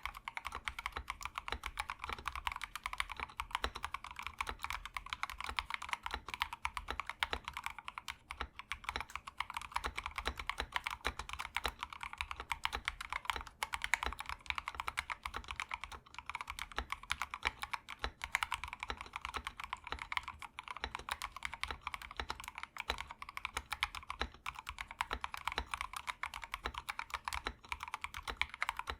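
Continuous fast typing on a tray-mount wooden-case 65% mechanical keyboard with unlubed C3Equalz Tangerine linear switches and MT3-profile keycaps: a dense, steady stream of keystrokes, several a second, each a sharp click with a low thud under it.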